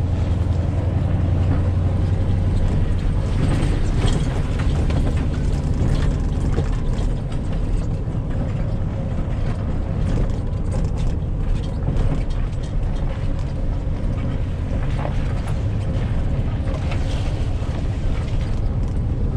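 A vehicle engine running steadily as a low, even hum, with scattered light clicks and rattles over it.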